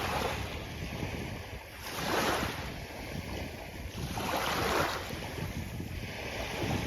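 Sea waves washing onto a beach, the surf surging about every two seconds, with wind buffeting the microphone.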